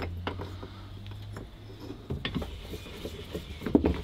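Scattered metallic clicks and knocks of a round steel bar shifting in the pipe jaw of a cast-iron Stewart Handy Worker vise, with the sharpest clank near the end.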